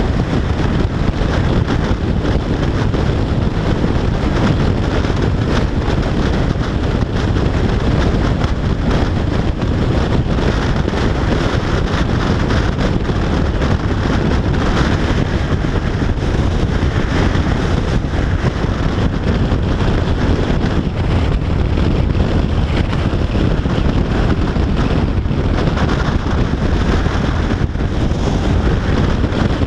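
Steady wind noise buffeting a GoPro's microphone on a Yamaha FJR1300AE motorcycle cruising at motorway speed, with the bike's engine and tyre noise mixed in beneath.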